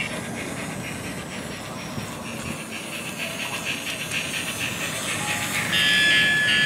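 Battery-powered toy engine running on plastic track: a small electric motor's whine with the rattle of its wheels, and a steadier, louder whine from about six seconds in.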